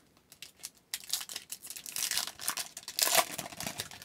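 Foil hockey card pack wrapper being torn open and crinkled by hand. It starts about a second in, with the loudest tear shortly after three seconds.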